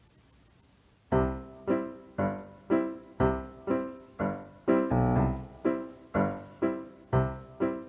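Background music with keyboard-like notes struck about twice a second, each fading before the next, starting about a second in.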